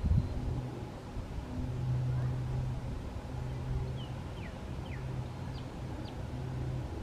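Low, steady hum of a distant engine that swells and fades in long stretches. A few short, high, falling chirps of a small bird come between about four and six seconds in, and there is a single knock right at the start.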